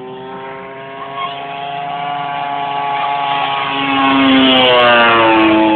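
Engine and homemade propeller of a 28%-scale Extra radio-controlled aerobatic plane on a low fly-by. The steady engine note grows louder as the plane approaches, then drops in pitch as it goes past about four to five seconds in.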